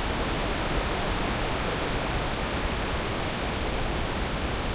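Steady rushing roar of a large waterfall.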